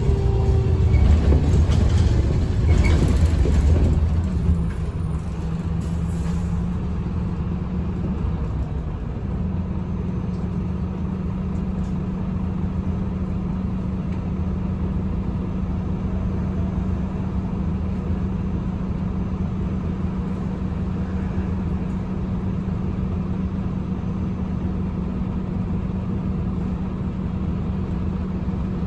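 Inside an Agora Line city bus with a Voith automatic gearbox: the bus runs louder as it slows over the first four seconds or so. It then stands with its diesel engine idling in a steady low hum.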